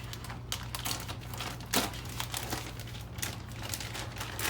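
Plastic packaging, likely the bag of shredded cheese, crinkling and rustling in the hands, with scattered small clicks and one sharper tick about two seconds in, over a steady low hum.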